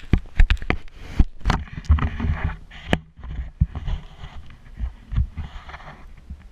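Handling noise on the camera's microphone: a quick run of knocks and thuds, then stretches of rubbing and rustling with a few more knocks as the camera is moved and set in place.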